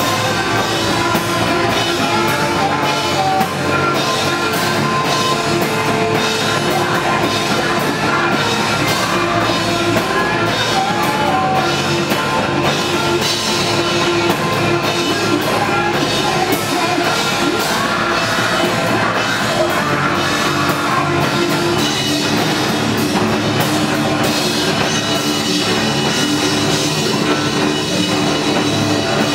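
Hardcore band playing loud live music without a break: distorted guitar and bass over a steadily pounding drum kit.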